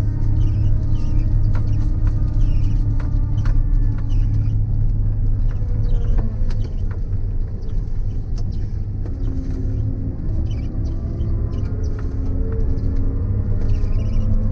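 Claas Lexion combine harvester running at work, a steady low rumble with tones that drift slowly in pitch and scattered light clicks and rattles.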